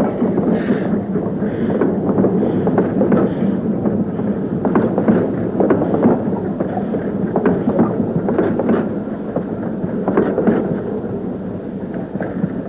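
Steam train running: soft exhaust chuffs early on over a steady rumble, with irregular clicking of wheels over rail joints, the sound easing off a little toward the end.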